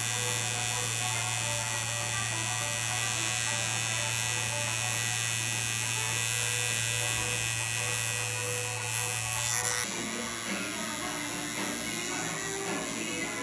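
Tattoo machine buzzing steadily as the needle works into skin. About ten seconds in the buzz cuts off abruptly and a different, less steady sound takes over.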